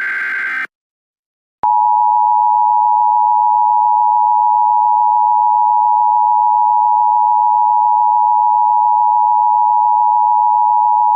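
The end of an Emergency Alert System digital header burst, a short buzzy warble, then after a pause the EAS attention signal: a steady, loud two-tone beep held for about ten seconds.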